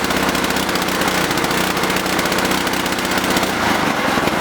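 Predator 212cc single-cylinder four-stroke go-kart engine with its stock muffler, held steady at raised throttle, then easing off about three and a half seconds in.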